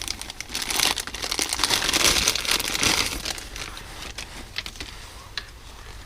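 Packaging crinkling and rustling as it is handled, busiest in the first three seconds or so, then fading to a few soft clicks and taps.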